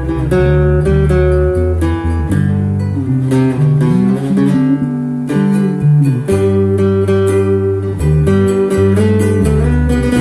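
Acoustic guitar playing an instrumental piece: a line of plucked melody notes over sustained bass notes, several notes a second.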